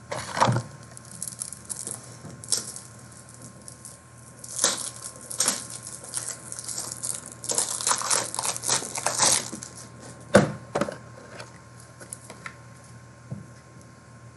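Trading cards and their plastic packaging being handled: irregular rustling and crinkling in bursts, with a few sharp clicks and taps, the loudest click about ten seconds in.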